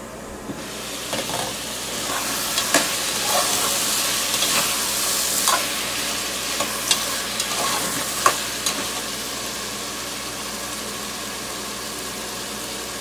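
Cubed squash sautéing in hot oil in a steel pot: a sizzle that starts about half a second in, with a metal ladle stirring, scraping and clinking against the pot many times. The clinks stop near the three-quarter mark and the sizzle carries on a little quieter.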